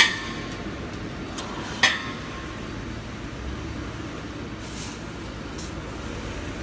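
Metal clanks of steel wire against a wire-mesh welding machine: a sharp clank with a brief ringing right at the start, another about two seconds in, then a few lighter clinks, over a steady low machine hum.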